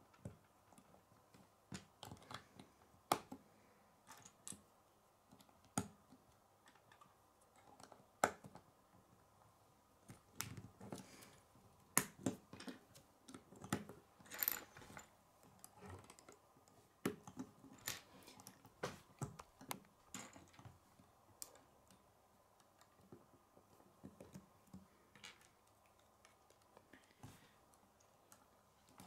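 Plastic K'nex rods and connectors clicking and snapping together as pieces are fitted by hand: irregular small clicks with a few sharper snaps, busiest in the middle.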